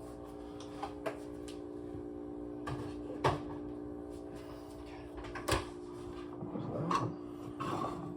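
A Nespresso coffee machine humming steadily as it brews, with several sharp knocks and clatters of kitchen cupboards and items being handled on top.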